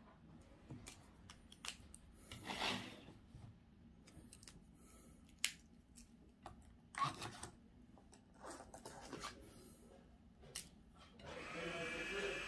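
Scattered soft rustles and sharp clicks of hands handling a spiral-bound colouring book and pen on a wooden table, with a cloth sleeve brushing close by. The sharpest click comes about five and a half seconds in.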